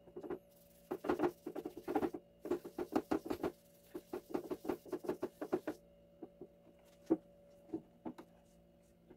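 Hand scrubbing the rusty burner plate of an electric hot plate with baking soda in quick rubbing strokes, about five a second, for about five seconds; then a few light, scattered knocks.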